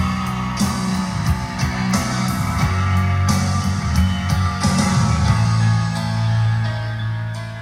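Rock music with electric guitar, bass and drums playing back from a Panasonic RQ-SX76, recorded on a phone held very close to the speakers. It gets a little quieter near the end.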